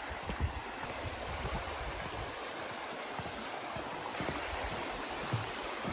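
River water flowing steadily, with wind buffeting the microphone in irregular low gusts.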